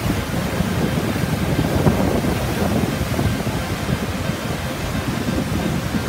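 Niagara Falls pouring into the river close by, a steady loud rush of falling water, with wind buffeting the microphone.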